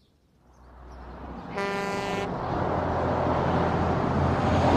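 A heavy truck bearing down: engine rumble rising steadily from near silence, with a loud horn blast about a second and a half in that lasts under a second, the rumble still growing louder at the end.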